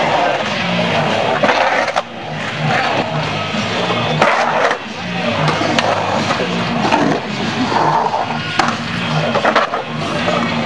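Skateboard wheels rolling and carving around a concrete bowl, a steady rolling noise broken by several sharp clacks of the board.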